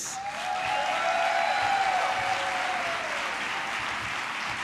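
A large audience applauding, with one long held cheer over it that trails off about three seconds in.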